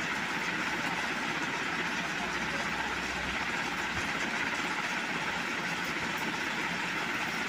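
Steady, even background hiss and hum with no distinct events.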